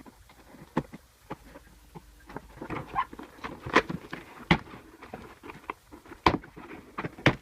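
Shipping packaging being opened by hand: irregular rustling and crinkling with several sharp clicks and knocks, the loudest near the end.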